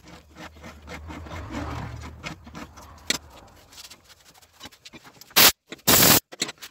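Hand countersink cutter scraping as it is twisted in a valve seat of a diesel walk-behind tractor's cast cylinder head, cutting the seat chamfer. Near the end come two loud, short bursts of rushing noise.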